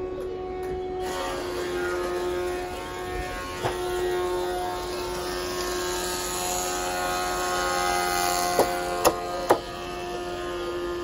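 Sawmill machinery running: a steady motor hum with a held whining tone, joined by a wider rushing noise about a second in. Near the end come three sharp knocks about half a second apart.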